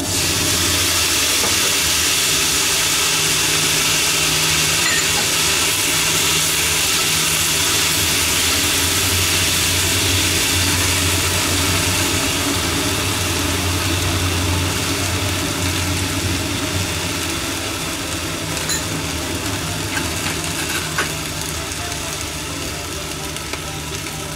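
Shishito peppers and chikuwa sizzling in a hot frying pan as mirin and liquid seasoning hit the pan: a loud sizzle starts at once and slowly eases off as the sauce cooks down. A steady low hum runs underneath.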